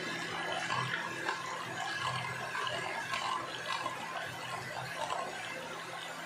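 Electric hand mixer running steadily, its beaters whipping a thin sugar-and-gelatin syrup in a glass bowl: a steady motor hum under a splashy, liquid whisking. The glaze is at an early stage, still runny and only starting to foam before it turns into a white whipped mass.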